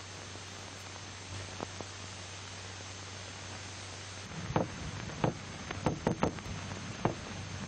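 Steady hiss with a low hum, then from about halfway in a hammer knocking on a tabletop: about six sharp, unevenly spaced knocks.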